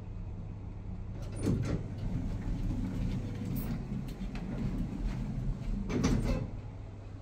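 Schindler lift's sliding doors clattering in two runs of knocks, about a second and a half in and again about six seconds in, over a steady low hum.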